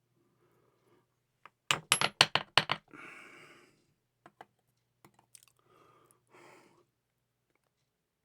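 Small metal lock parts (pin-tumbler pins and springs) clicking as a lock is taken apart. There is a quick run of about six sharp taps, then a brief rattle, with a few faint ticks and handling sounds afterwards.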